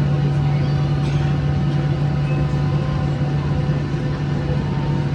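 Boeing 737-800's CFM56-7B jet engines running steadily, heard from inside the passenger cabin as a loud drone with a deep hum and a few steady higher tones.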